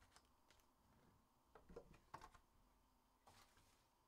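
Faint taps and rustles of hockey card packs being handled and set down on a table, in a few short clusters, loudest about two seconds in.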